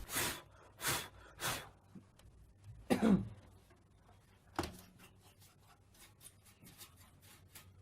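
A person's short breathy bursts, five in the first five seconds, the loudest about three seconds in with a voiced, cough-like sound, followed by faint light clicks and taps of handling.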